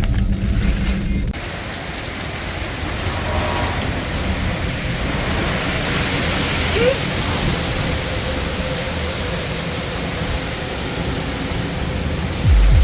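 Hurricane wind and heavy rain, a steady rushing noise, after a sudden cut about a second in. Near the end comes a brief, loud low thump.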